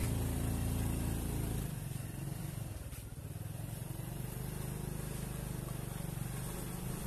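Motorcycle engine running steadily at low speed, a little quieter from about a second and a half in.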